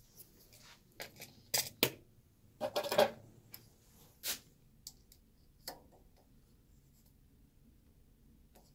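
Sharp metal clicks and taps from a steel caliper being handled against the chuck and workpiece of a stopped metal lathe. The clicks are loudest and closest together about two to three seconds in, with a few single ones after that.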